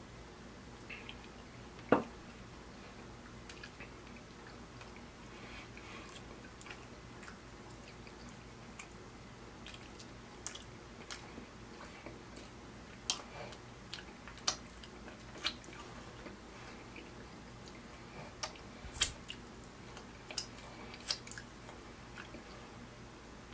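Wet mouth clicks and smacks of a man chewing and licking sauce off his fingers, scattered and irregular, with one louder click about two seconds in and more of them in the second half.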